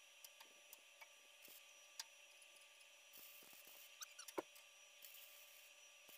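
Near silence: a few faint light clicks and rustles of a MIG welding torch and a sheet-metal repair panel being handled and held in place, over a steady faint hum. The sharpest click comes a little after four seconds in; no welding arc is heard.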